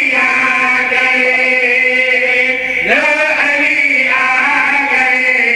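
A group of men chanting together in unison into microphones, amplified, in long drawn-out phrases; a new phrase starts about three seconds in.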